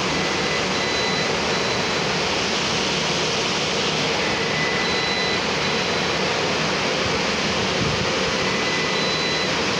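Steady loud rushing noise, even and unbroken. A faint high-pitched tone sounds briefly three times, about four seconds apart.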